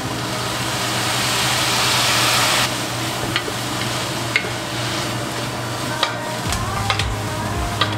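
Soy sauce poured into a hot stainless steel frying pan of green peppers and egg, sizzling and swelling louder for about two and a half seconds before stopping abruptly. Then a wooden spatula stirring the stir-fry, with several sharp clicks against the pan.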